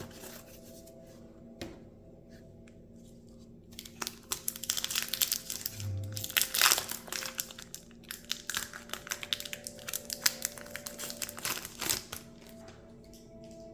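A trading card booster pack wrapper being torn open and crinkled: dense, irregular crackling from about four seconds in until near the end, over soft background music.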